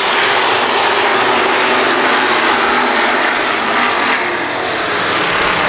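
A pack of street stock dirt-track race cars running hard together on a green-flag restart: a loud, steady mass of engine noise.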